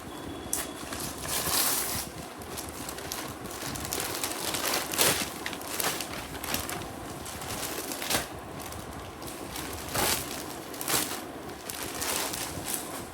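Plastic packaging crinkling and rustling in irregular bursts as a parcel is handled and opened.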